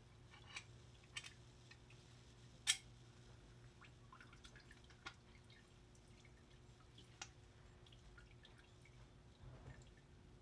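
Dripping and light splashing of degreaser solution as small metal engine parts from a Honda D16 engine are lifted and turned in a bucket, with a few light metal clicks, the sharpest about two and a half seconds in.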